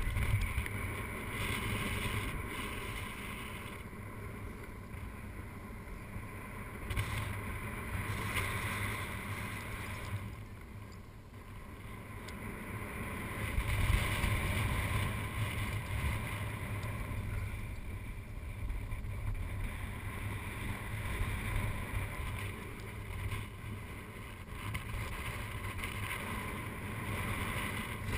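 Wind rushing over a camera microphone in paraglider flight: a steady low rumble and hiss that rises and falls in gusts, dipping about ten seconds in and swelling again a few seconds later.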